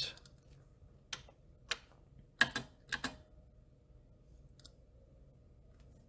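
Clicks of individual keys being pressed on an IBM Model F AT buckling-spring keyboard: about five separate keystrokes within the first three seconds or so, then a faint one later.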